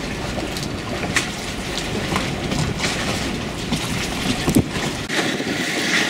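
Steady wind and water noise around a moored sailing yacht, with a few faint knocks. About five seconds in, wind on the microphone grows louder and hissier.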